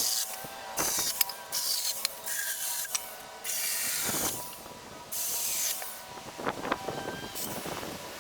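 A saw rasping through a crab apple branch in uneven strokes, roughly one a second.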